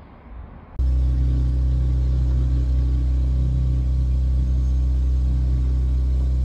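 A steady, loud low rumble with a deep, even hum cuts in abruptly about a second in and holds unchanged.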